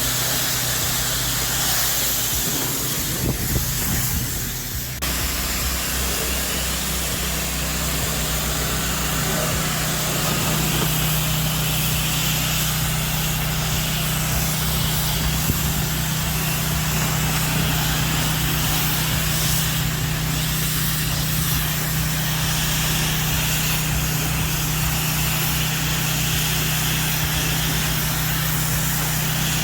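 Pressure washer engine running steadily under the hiss of spraying water. The sound shifts abruptly about five seconds in, then holds a steady hum.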